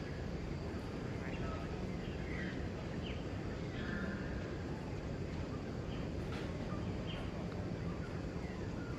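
Outdoor ambience: a steady low background rumble with short, high chirping calls scattered through it, about one every second or so.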